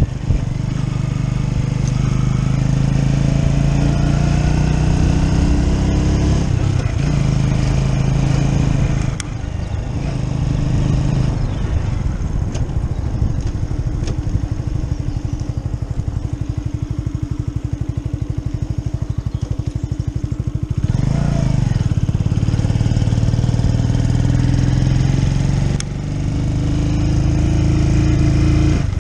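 Keeway Superlight 125 motorcycle's small V-twin engine running under way, its pitch rising as it accelerates and dropping at each gear change. It settles lower and steadier for a long stretch in the middle, then picks up and rises again, with one more shift near the end.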